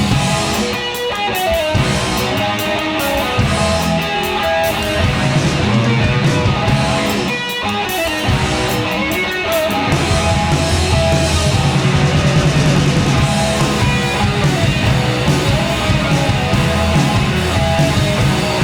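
Rock band playing an instrumental passage live: electric guitar to the fore over bass and drums, with sharp drum and cymbal hits in the middle stretch.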